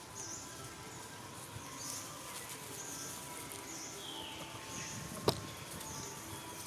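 Short high-pitched animal chirps repeating about once a second over outdoor background noise, with one sharp click about five seconds in.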